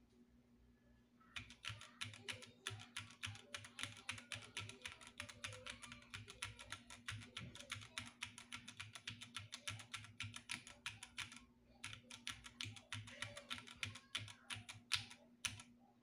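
Fast typing on a Polyglot split keyboard: a dense, rapid run of key clicks that starts about a second in, with a brief pause about three-quarters of the way through before the clicking resumes.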